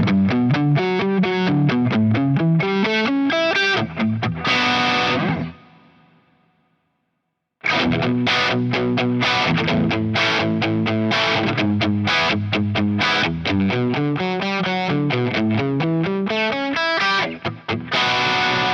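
Covenant Tradition T-SP electric guitar (basswood body, humbucking Alnico V pickups) played through distortion: fast picked single-note riffs. The first phrase ends on a chord that rings out and fades to silence; after about two seconds a second phrase begins, ending on another ringing chord.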